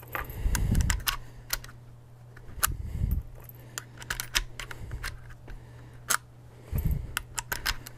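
Cartridges being thumbed one by one through the loading gate of a Rossi R92 lever-action rifle into its tube magazine: a string of sharp metallic clicks as rounds snap past the spring-loaded gate, with a few dull thumps from handling the rifle. The rounds go in easily now that the magazine spring has been shortened.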